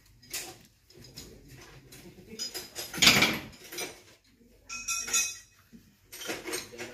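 Irregular metallic clinks and rattles of hand work on a marine diesel engine's fuel pump and control linkage, loudest about three seconds in.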